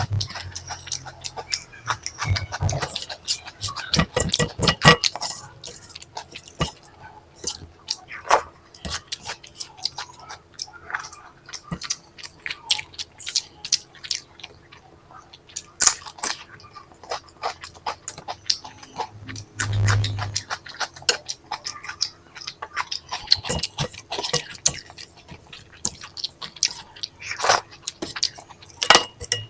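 Close-miked chewing and mouth smacking while eating curry and rice, with irregular sharp crunches of potato chips. A dull low thump comes about twenty seconds in.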